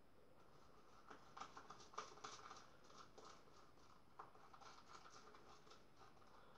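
Faint, irregular soft ticks and scratches of a shaving brush working lather around the inside of a shaving bowl, gathering it from the sides.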